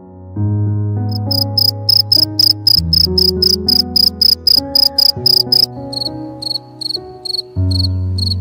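Field crickets chirping in quick, regular high pulses, about four a second. From about 6 s the chirp turns slightly lower and slower. Soft sustained music chords run beneath.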